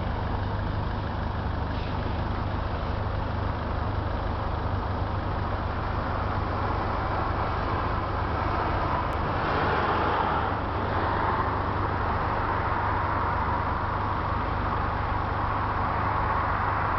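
Road traffic noise: car engines idling in front of a closed level crossing, with a steady low hum. It gets somewhat louder about nine seconds in.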